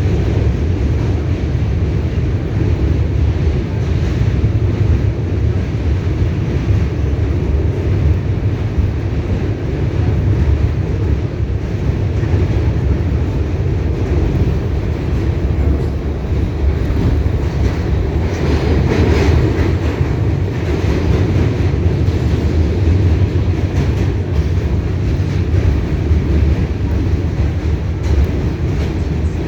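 R68A New York subway car in motion, heard from aboard: a steady rumble of wheels on rail with the car's running noise. Partway through, the noise briefly turns brighter and higher-pitched.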